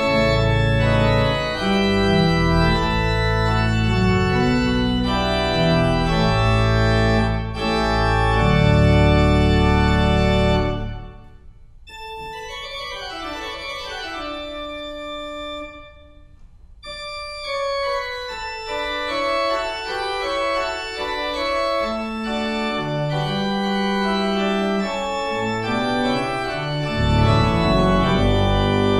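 Pipe organ, a 1963 Rieger rebuilt by Buzard in 2010, playing a Baroque toccata in D major. Full chords over deep pedal bass notes drop out about eleven seconds in, leaving a quieter, thinner passage of running notes on the manuals with a brief break. The pedal bass returns near the end.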